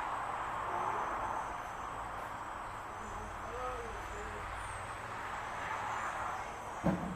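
Steady rushing outdoor background noise with a few faint, low hooting bird calls, a short series of them around the middle.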